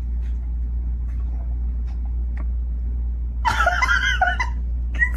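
Steady low rumble, like a vehicle's cabin on the move, with a loud, high-pitched, wavering call of several rising-and-falling strokes about three and a half seconds in and a shorter one near the end.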